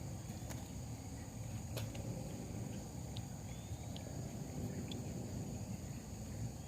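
Crickets chirring in one steady high-pitched drone, over a low rumble, with a few faint clicks.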